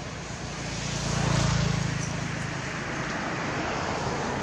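A motor vehicle passing on a road: engine hum and road noise swell to a peak about a second and a half in, then ease back into steady traffic noise.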